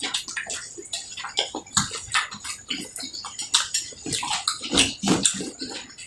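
Close-up wet eating sounds: irregular chewing and lip-smacking on a mouthful of rice and curry.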